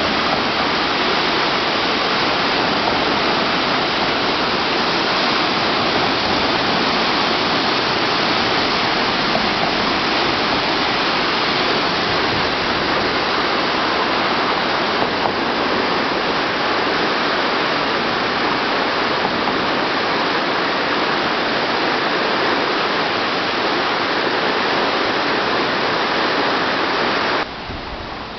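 Steady, loud rush of a swollen river in flood after a typhoon, the water pouring and churning without a break. It drops suddenly in level about a second before the end.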